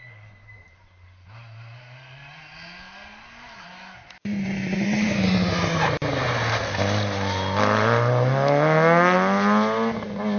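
Rally car engine on a stage, faint at first with revs dipping and rising. About four seconds in it turns suddenly much louder; the revs drop as the car slows, then climb steadily as it accelerates hard through the gears.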